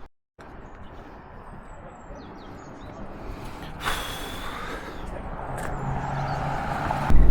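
A vehicle approaching and growing steadily louder, with an engine hum coming in and the sound jumping up sharply as it draws close near the end.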